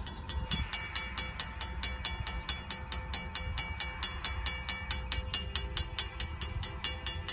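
Griswold mechanical crossing bell ringing in rapid, evenly spaced strokes, about three a second, starting right at the beginning. It signals that the grade-crossing warning has activated for an approaching train.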